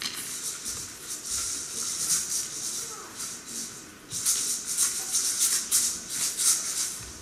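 A shaman's hand rattle shaken in rapid bursts during a limpia cleansing ritual, with a short lull about three seconds in before the shaking resumes.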